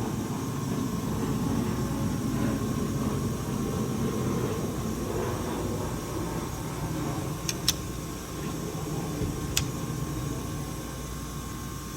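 Wolff Twice As Sharp scissor sharpener running, its 240-grit diamond wheel grinding a scissor blade in a steady rumbling hum. Three sharp clicks come late on: two close together, then one more about two seconds later.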